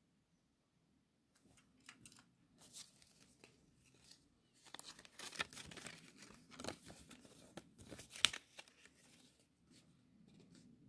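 Paper cassette J-card insert rustling and crinkling as it is taken from its plastic case and unfolded, with light clicks of handling. The rustling is densest in the middle, and a sharp click about eight seconds in is the loudest sound.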